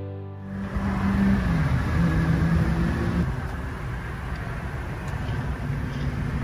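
Car driving, with a low hum of engine and road noise, followed by the steady noise of street traffic outdoors.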